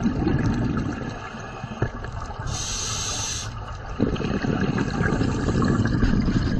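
Scuba diver breathing through a regulator underwater: a low rush of exhaled bubbles, a short hiss of inhalation through the regulator near the middle, then another long rush of bubbles.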